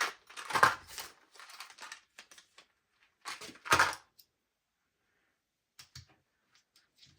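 Clicking and clacking of an airsoft gas-blowback pistol's plastic and metal parts being handled as it is stripped down: a run of clicks in the first two seconds, a louder clatter about three and a half seconds in, then a few faint ticks.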